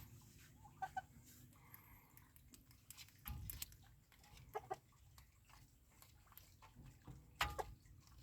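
Hens clucking quietly while feeding, with scattered sharp taps and a louder knock near the end.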